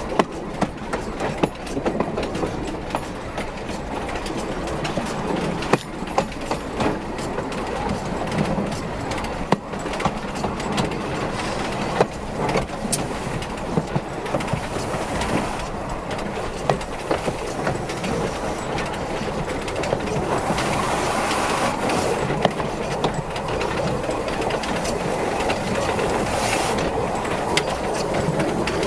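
Steam locomotive Spreewald rolling slowly while shunting, its wheels clicking and clattering over rail joints and points under a steady running noise.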